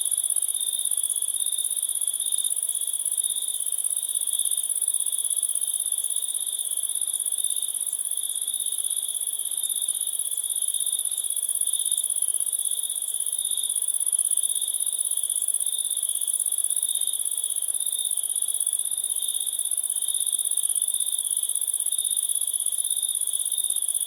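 Crickets chirping in a continuous, unbroken high-pitched trill that holds steady in pitch and level.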